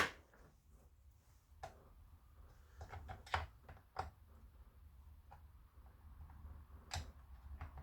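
Scattered small metallic clicks and taps, about half a dozen, as carburettor-adjustment tool tips are handled and tried on a chainsaw carburettor's adjusting screws.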